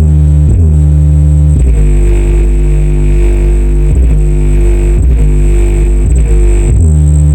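Massive Audio GTX 15-inch subwoofer on a test bench, playing bass music loud: long, deep sustained notes that shift pitch every second or two.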